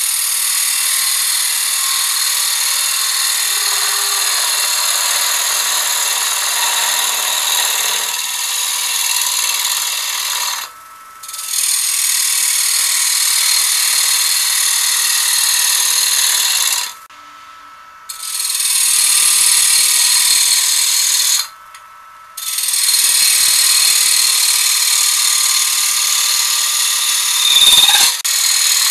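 Bowl gouge cutting a red oak bowl blank spinning on a wood lathe: a steady hissing shear of shavings peeling off, in long passes broken by three short pauses where the tool comes off the wood. A brief louder scrape comes near the end.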